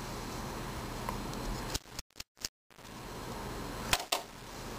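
A few light clicks as small airsoft pistol parts are set into the ultrasonic cleaner's plastic basket: one about two seconds in and two close together near the end, over a steady low hiss. The sound cuts out for under a second in the middle.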